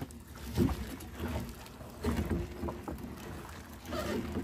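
Water slapping against a small fishing boat's hull, with irregular knocks and splashes as a sinking gill net is hauled in by hand; the loudest splash comes about half a second in.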